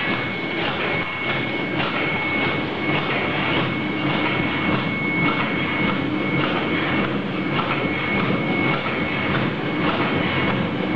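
LTRG-160 automatic soft-tube filling and sealing machine running at speed: a steady mechanical clatter that beats about twice a second as the tube holders index through the stations, over a steady high-pitched whine.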